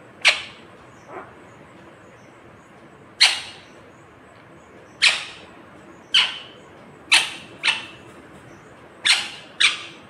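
Rose-ringed parakeet giving about eight short, harsh squawks, irregularly spaced a second or two apart, some in quick pairs.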